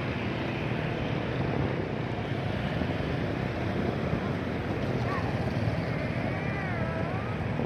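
Motorbike and scooter engines running in street traffic, a steady rumble mixed with wind on the microphone. A brief wavering higher tone comes in near the end.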